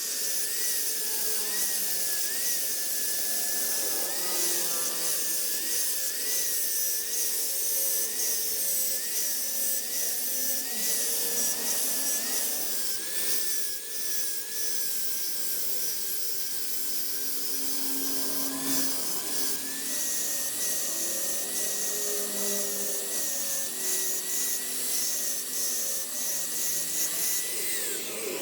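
A small electric power tool running steadily, its high whine wavering and dipping slightly as work is pressed against it, with a hiss.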